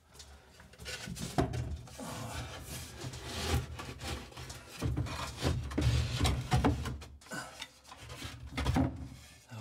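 Coated chipboard shelf unit scraping and bumping on top of a wardrobe as it is slid and pushed into place: irregular rubbing with a few sharp knocks.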